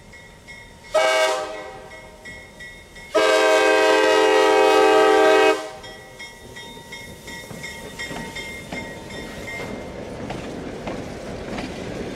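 Horn of a Reading Company EMD FP7 diesel locomotive sounding at a grade crossing, a chord of several tones: a short blast about a second in, then a long blast through the middle. After that the locomotives pass close by, the diesel engines running and the wheels clicking over the rail joints, growing louder toward the end.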